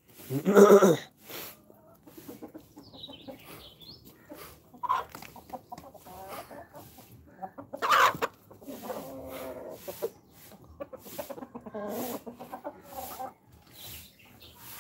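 Desi chickens clucking, with two louder calls, one about half a second in and one about eight seconds in, over scattered softer clucks.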